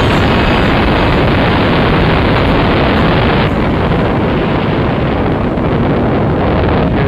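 Wind buffeting a small camera's microphone during a paragliding flight: a loud, steady rumble and rush with no clear pitch. It eases a little about halfway through.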